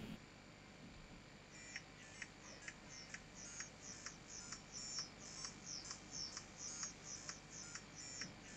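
Music played from a phone's headphone output straight into a 6 ohm 2 watt speaker with no amplifier, not very loud at all: only a faint ticking beat, about two a second, comes through, starting about a second and a half in. The weak sound shows that the phone's output alone cannot drive the speaker.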